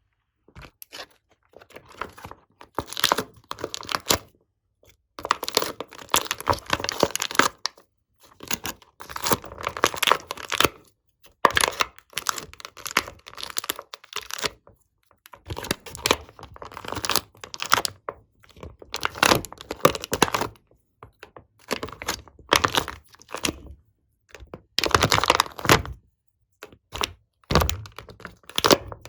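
Slime being squeezed, stretched and folded by hand, crackling and popping with air pockets in irregular bursts of a second or two, separated by short pauses.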